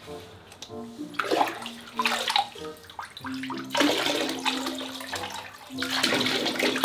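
Bathwater poured from a cup over a puppy in a part-filled tub: a few short splashes, then a steady pour lasting about two seconds past the middle and another starting near the end.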